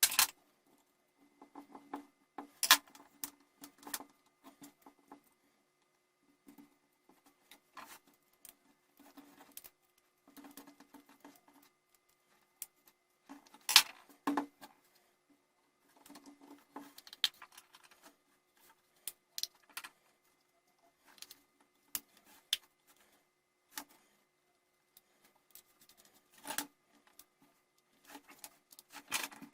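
Irregular clicks, taps and rustles of small plastic and metal parts being handled and fitted together as a Dremel 3000 rotary tool is reassembled, with a few sharper knocks, the loudest about halfway through.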